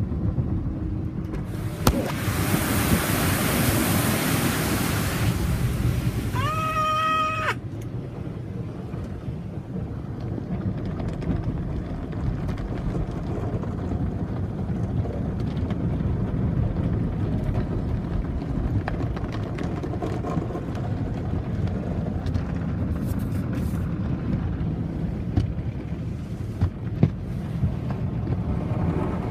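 Automatic car wash heard from inside the car: a steady low rumble of machinery and water on the body. A loud rush of spray starts about two seconds in and cuts off sharply about seven seconds in, just after a short steady tone of about a second.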